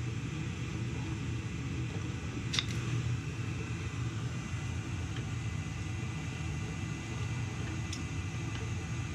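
Gas-fired boiler running with its burners lit, a steady low rumble. There is a sharp click about two and a half seconds in and a fainter one near the end.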